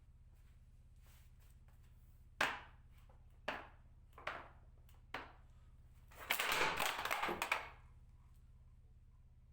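Four separate knocks about a second apart, then a rough scraping or rustling noise lasting about a second and a half.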